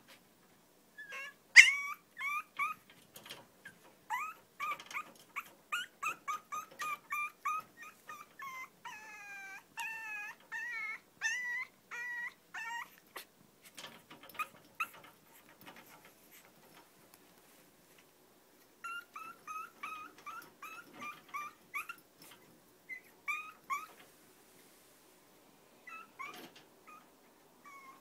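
Long-coat chihuahua puppy whining and yipping in quick runs of short, high cries, several a second, with a few longer wavering whines among them. It goes quiet for a few seconds past the middle, then cries again in shorter runs.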